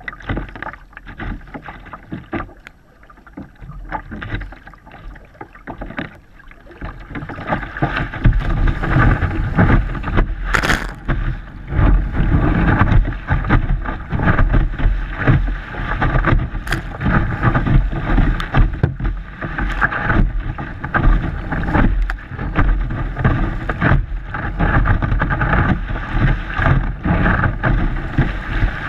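Water splashing against a kayak paddled out through breaking surf, with paddle strokes and spray hitting the bow. Fairly quiet for the first several seconds, then louder and rougher from about eight seconds in as whitewater breaks over the boat.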